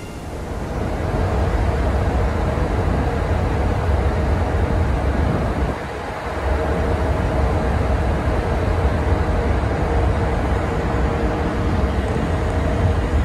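Wind buffeting the microphone on the open deck of a moving Washington State car ferry, over a steady engine hum. The sound briefly drops about six seconds in, then carries on.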